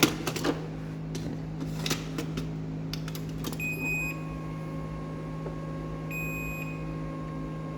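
LiftMaster 98022 jackshaft garage door opener running on battery backup: a few clicks as the cover is shut, then the opener beeps three times, about every two and a half seconds, while its motor starts with a steady whine and no soft start.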